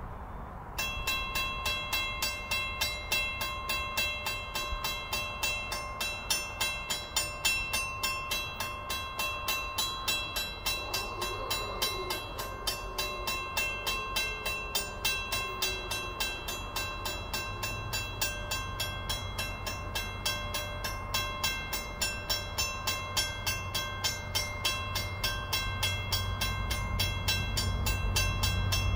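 A railway crossing bell starts about a second in and dings rapidly and evenly while the crossing is active. Near the end, the low rumble of an approaching VIA Rail train, led by an F40PH-2D diesel locomotive, grows louder beneath the bell.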